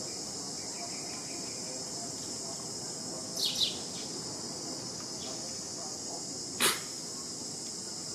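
Steady high-pitched drone of insects. About three and a half seconds in come two quick falling bird chirps, and later one short sharp click.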